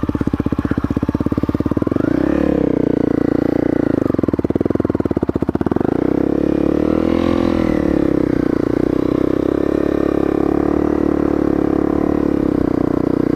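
Honda CRF250L's single-cylinder four-stroke engine running at low revs as the bike is turned round on a slippery, muddy lane, with throttle blips that raise and drop the engine note about two seconds in and again near the middle.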